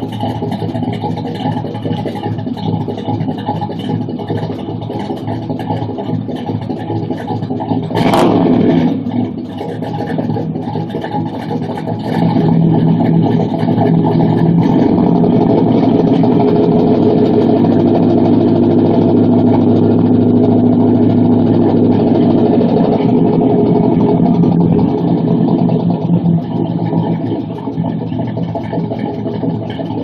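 2000 Chevy S10's 305 HO V8 with a Lunati Voodoo cam, headers and an open Flowmaster 40-series exhaust with no catalytic converter, idling with a choppy cam lope while warming up. It gives a quick throttle blip about eight seconds in. It runs louder for about ten seconds from twelve seconds in, then settles back.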